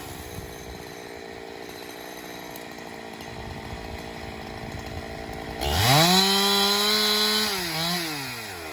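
Two-stroke chainsaw idling, then revved hard about five and a half seconds in: the pitch rises sharply, holds high for about two seconds, and falls back toward idle near the end.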